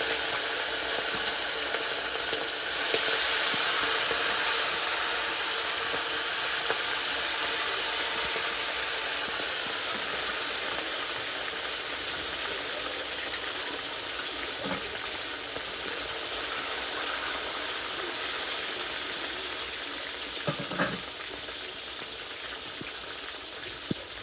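Food deep-frying in hot oil: a steady sizzle that jumps louder about three seconds in and then slowly dies down, with a few light knocks in the second half.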